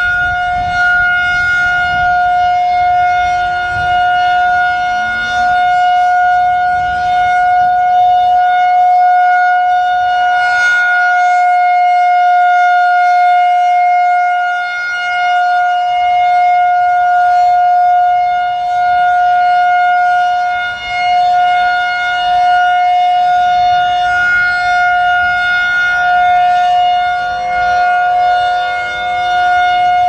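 Federal Signal 2001-130 rotating outdoor warning siren sounding a steady, loud single pitch: the Alert signal of its monthly test. Its loudness swells and dips as the rotating horn sweeps around.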